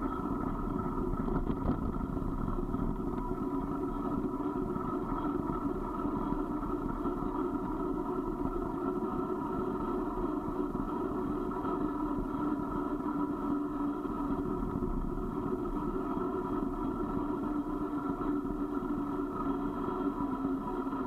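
Steady running noise of a vehicle moving down a paved mountain road: an even hum and rumble that stays at one pitch throughout.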